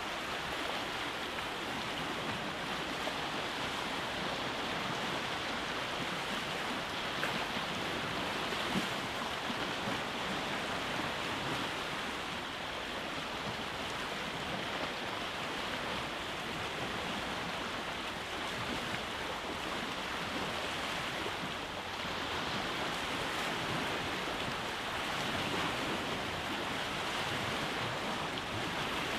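Sea waves breaking and washing over a rocky shore: a steady rushing of surf that swells and eases slightly, with no single crash standing out.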